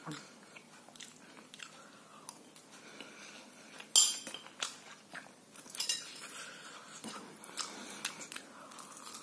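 Close-miked eating: a person chewing and slurping instant noodles, with scattered clinks of a spoon or fork on a plate, the sharpest about four seconds in.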